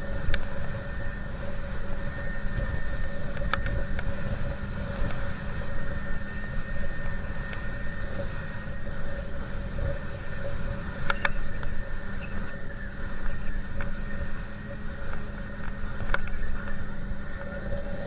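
Motorboat engine running steadily with an even hum, under a heavy low rumble of wind and water noise.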